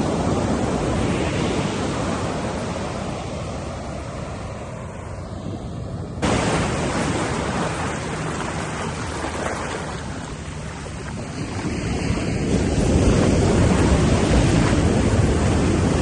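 Pacific Ocean surf breaking and washing on a beach, a steady rush of noise that ebbs and swells. It jumps up suddenly about six seconds in and grows louder again near the end.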